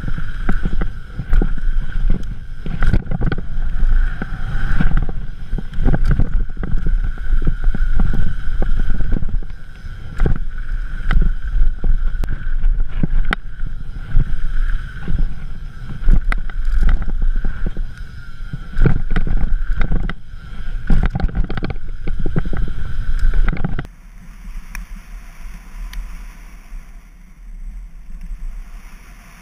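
Specialized Enduro full-suspension mountain bike running fast down a gravel downhill trail: wind buffeting the microphone, tyres on loose dirt and the bike rattling with rapid knocks over bumps. About 24 s in the sound drops abruptly to a quieter, smoother rush.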